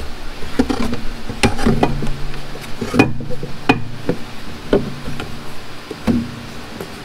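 Plywood heat-shield panel with steel angle brackets being worked into the footwell beside the pedals of a Kubota L3901 tractor: about ten uneven knocks and clatters as wood and metal bump against the tractor's frame.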